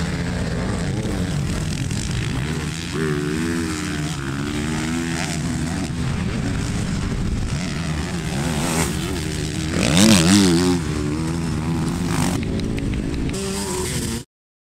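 Motocross dirt bike engines revving up and down on the track, one rising in revs and loudest about ten seconds in. The sound cuts off suddenly near the end.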